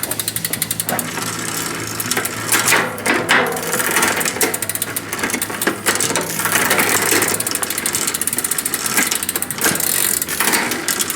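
Bicycle drivetrain turned by hand in a repair stand: the chain running over the cogs and chainrings with irregular clicking and rattling as it is shifted toward the granny gear, the chain rubbing on the front derailleur.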